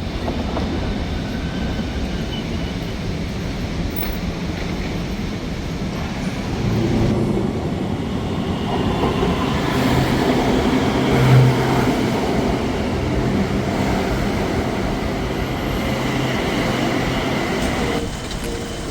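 A vehicle running, heard from on board: a steady rumble with a low hum that grows louder about seven seconds in.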